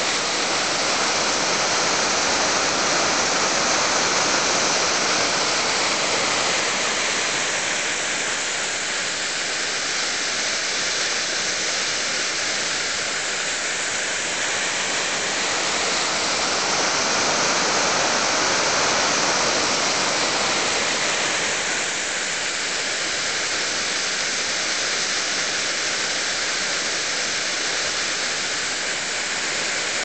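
Small woodland waterfall and rocky creek: a steady rush of falling and tumbling water over boulders, its level slowly swelling and easing every several seconds.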